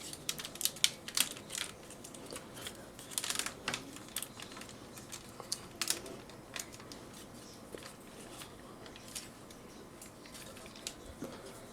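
Scattered light clicks and taps of the plastic and die-cast parts of a toy figure being handled and tabbed together, busiest in the first few seconds and sparser after.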